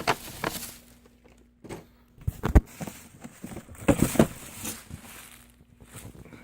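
Handling noises from unpacking boxed figures: irregular rustles and light clicks of cardboard and packaging, with one sharp knock about two and a half seconds in and another cluster of knocks near four seconds.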